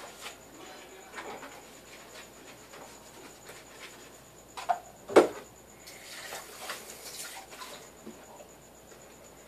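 Dishes and utensils clinking and knocking as they are washed at a kitchen sink, with one loud clank about five seconds in.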